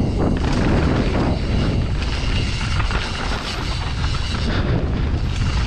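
Mountain bike descending a dirt forest trail at speed. Steady rushing wind and tyre noise on the helmet camera's microphone, with constant rattling and clatter of the bike over roots and rough ground.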